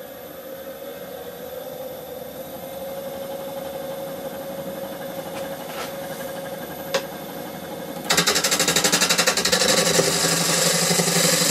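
Wood lathe running with a honey locust bowl blank spinning: a steady hum, with a single click near 7 s. About eight seconds in, a bowl gouge starts cutting and the sound turns to a loud, rapid rhythmic knocking of about eight strokes a second, the gouge meeting the blank's uneven surface on each turn.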